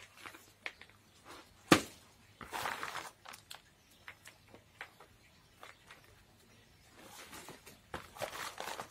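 Hands pressing and working chunky bark potting mix into a terracotta pot around an orchid: scratchy rustling and small clicks of bark pieces, with one sharp knock a little under two seconds in.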